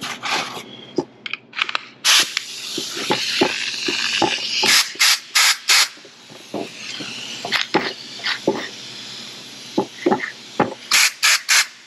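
Compressed air hissing through a stuck pneumatic hand tool: one long blast followed by several short trigger blips, with clicks from handling the tool.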